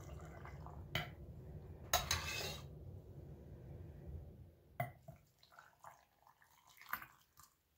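A steel ladle pours hot pickling brine from a pot into a glass mason jar of eggs. There is a splashing pour about two seconds in, and a few sharp clinks of the ladle against the jar and the pot.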